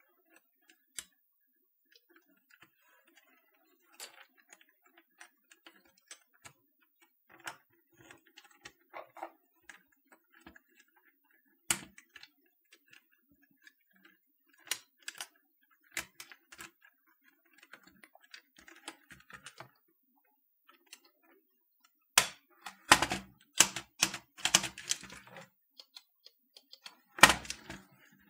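Small plastic clicks and snaps as the long spacebar keycap of a Canon TypeStar 4 keyboard is fitted and pressed down to seat its clips, then a quick flurry of louder clicks and knocks about three-quarters through, and one more near the end.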